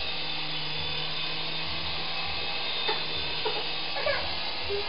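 Syma S107 toy remote-control coaxial helicopter in flight: the steady high whine of its small electric motors and whirring rotors.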